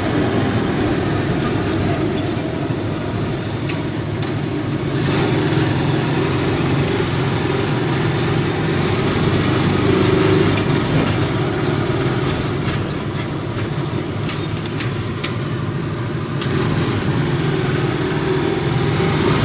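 Motorcycle engine of a tricycle (motorcycle with sidecar) running steadily while riding, heard from inside the sidecar, with road noise.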